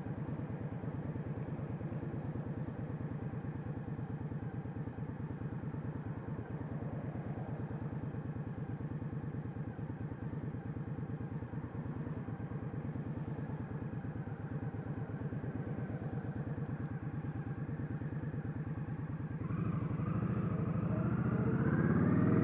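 Indian Scout Sixty's liquid-cooled V-twin idling steadily while stopped, then revving up as the motorcycle pulls away near the end, its pitch rising.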